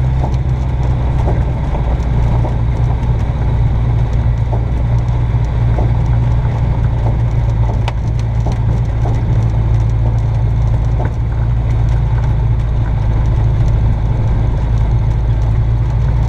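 Aerodreams Land Africa ultralight's Rotax engine and propeller running steadily at taxi power, a loud, even low drone heard from inside the cockpit, with a few light clicks and knocks.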